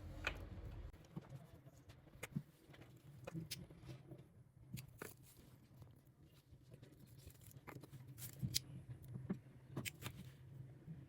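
Faint, scattered clicks and taps of small parts and tools being handled while sealant is applied around a pump seal, over a low steady hum.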